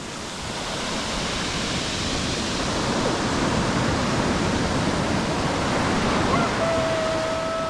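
Surf washing in over a rocky shore: a steady rushing that swells over the first few seconds and holds. Near the end a single steady pitched tone starts and is held.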